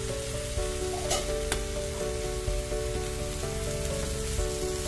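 Jackfruit and coconut filling sizzling in ghee in a frying pan, stirred with a spatula, with a couple of sharp scrapes about a second in. Background music plays over it.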